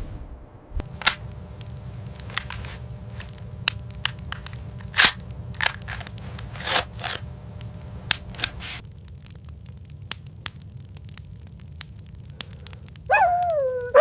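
Wood fire crackling, with irregular sharp pops over a low steady rumble. About a second before the end, a wolf pup starts a whining howl that falls in pitch.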